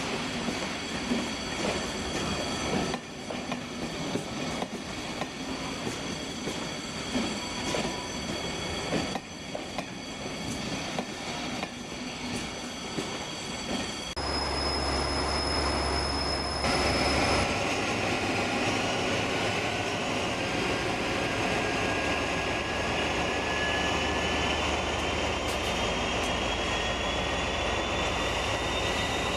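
Model trains running on a layout: small electric motors whining and wheels ticking over the track. About halfway through the sound changes abruptly, and then a high whine slowly rises in pitch.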